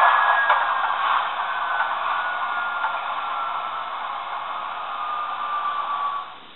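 Class 20 diesel sound from the LokSound V4 decoders in a pair of Bachmann model Class 20 locomotives, played through their small onboard speakers: a steady engine hiss with a turbo whistle falling slowly in pitch as the sound fades, winding down. It cuts off suddenly about six seconds in.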